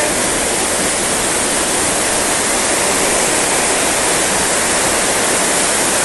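A small waterfall of white water tumbling over rocks, a steady loud rushing.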